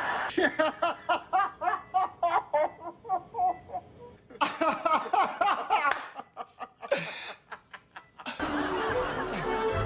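A person laughing in quick rhythmic bursts, about four a second, in several bouts. Music starts near the end.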